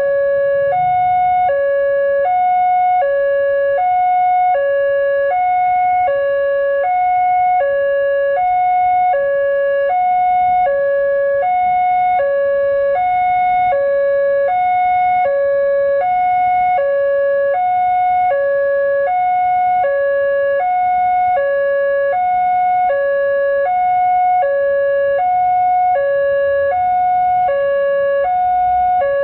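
Indonesian railway level-crossing alarm sounding from its loudspeaker horn: a steady two-tone electronic signal that alternates evenly between a lower and a higher tone, each held about two-thirds of a second. It is the warning that the crossing is closed and a train is approaching.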